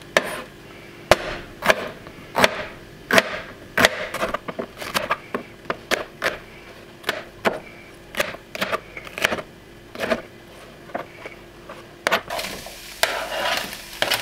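Knife chopping on a wooden chopping board: sharp, irregular knocks about one to two a second, over a faint steady hum.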